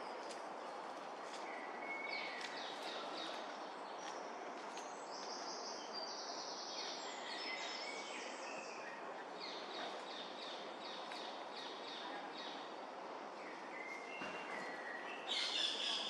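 Wild birds chirping and calling over a steady background rush of noise, with a louder, denser run of calls near the end.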